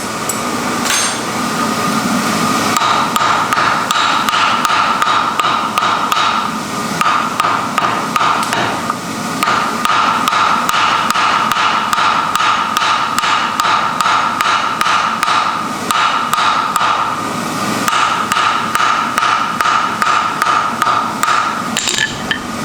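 Rapid, regular hammer blows forging wrought iron, several strikes a second with short pauses, over a steady high hum.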